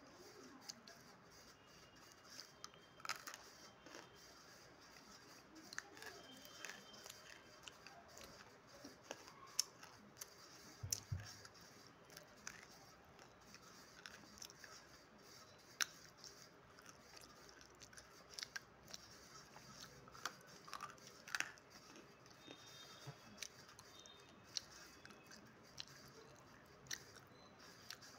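Dry edible clay being bitten and chewed: irregular sharp crunches and crackles, close to the mouth.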